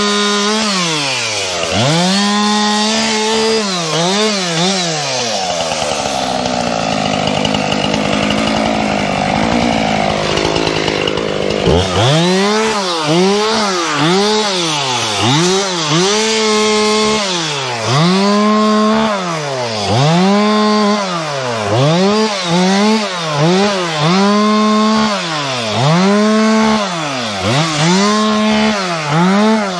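Two-stroke chainsaw bucking a felled black walnut tree, its engine revving up and dropping back about once a second. For about six seconds in the middle it holds a steady note under load while cutting, then the quick up-and-down revving resumes.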